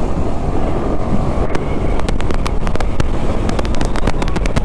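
Motorcycle riding at speed: wind buffeting the microphone over a low engine and road rumble, with a scatter of sharp crackles through the second half.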